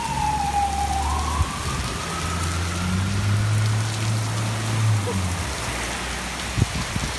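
Heavy rain pouring down on pavement, with a siren wailing, its pitch falling then rising again. A car drives slowly through the wet lot, adding a low hum in the middle of the stretch.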